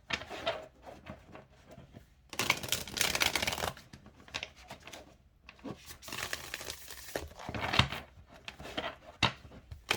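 A new deck of tarot cards being shuffled by hand, in papery bursts of shuffling with short pauses between, the cards' stock still a little stiff and slightly sticky.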